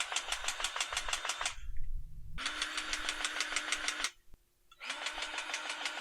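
Grease gun pumping grease into the zerks of a sprayer boom's main pivot, running in three spells of about a second and a half each, a steady hum with a fast, even ticking. The grease is pushing pressure-washer water back out of the pivot.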